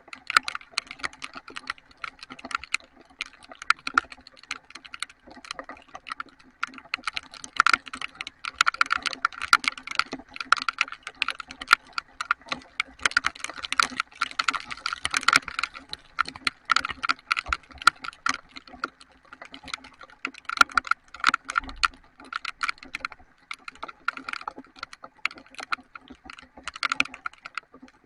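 Heavy raindrops striking close to the microphone as a dense, irregular run of sharp taps, busiest in the middle, over a faint steady hum.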